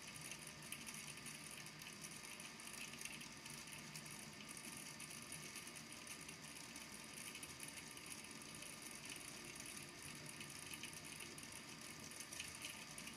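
Small beads in a volcano lamp's water tank tapping on the base of the tank as they sink back down: a faint, continuous run of quick light clicks.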